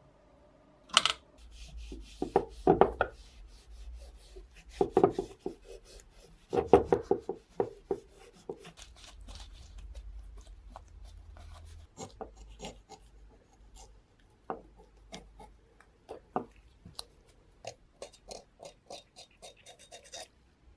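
Hand work on the brass parts of a bottle corker: irregular knocks and clicks of metal being handled, a cloth rubbing a polished brass piece, and a blade scraping the metal near the end. The loudest knocks come in the first seven seconds.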